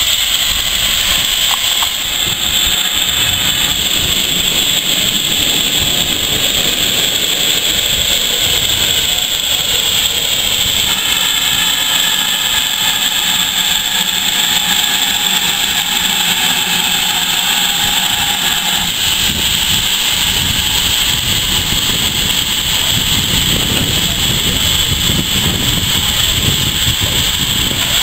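Great Western steam locomotive hissing steam steadily and continuously.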